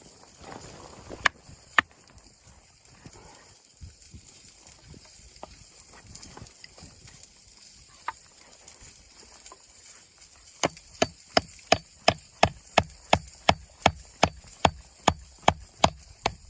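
A few scattered sharp knocks, then, about two-thirds of the way in, a quick regular run of sharp knocks at about three a second.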